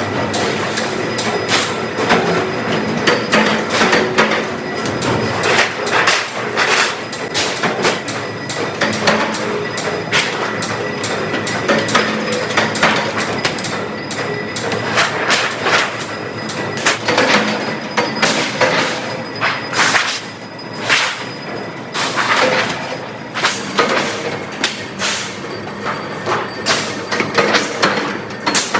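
Metalworking shop noise: frequent irregular clanks and knocks of metal parts being worked, over a steady machine hum with a thin high whine.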